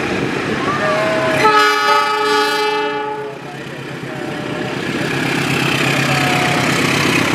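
Diesel locomotive horn sounding one steady blast of about a second and a half, a little over a second in, over the steady running of the locomotive and its passenger coaches passing close by.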